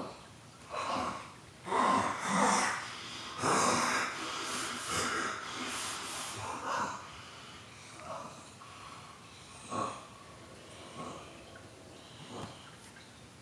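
A man snoring through a wall: loud, rough, wheezing snores and snorts, a long heavy run of them in the first half, then shorter, fainter snorts every second or two. The snoring is so ragged that the recorder wonders whether the sleeper is choking.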